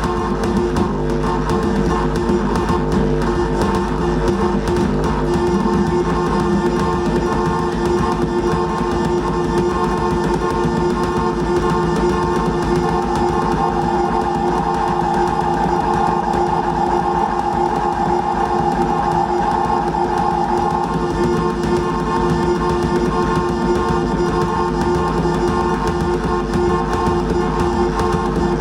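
Droning instrumental music made of held, steady tones over a steady low pulse, with a higher tone swelling and held through the middle.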